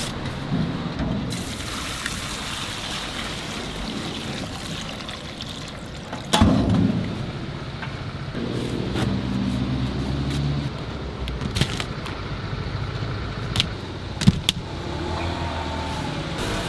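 Steady city street traffic, with a vehicle engine humming by about halfway through. A sharp thud about six seconds in and a few clicks later.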